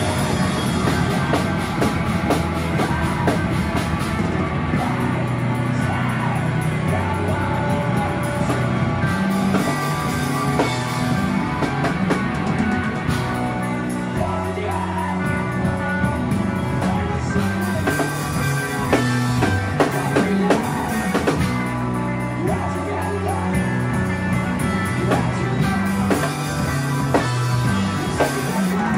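Live rock band playing loud: electric guitars, bass and drum kit, with vocals over them.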